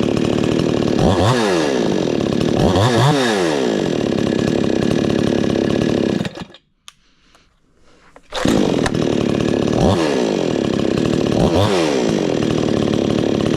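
22-year-old gas chainsaw starting on one pull and being revved up and down twice. It shuts off about six seconds in, starts again on a single pull about two seconds later and is revved twice more.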